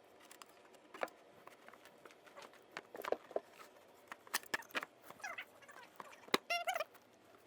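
Faint scattered clicks and light knocks from handling wooden drawer parts and a clamp, with a short squeaky chirp about six and a half seconds in.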